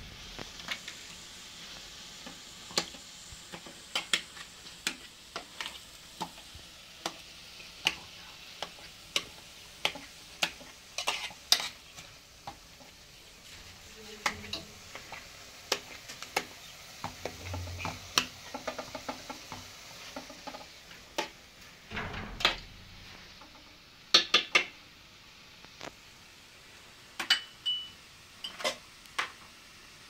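Utensils clinking and tapping against cookware in irregular sharp strikes, over a faint steady sizzle in the first third.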